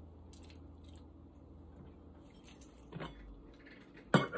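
Quiet handling of raw chicken pieces going into glass mason jars, with a few soft taps. Near the end, a sudden run of loud clinks and knocks as the stainless steel canning funnel is moved onto a glass jar.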